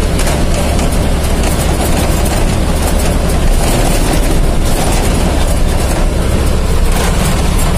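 Steady engine drone with road and wind noise inside the cab of a heavy vehicle cruising at speed on a highway.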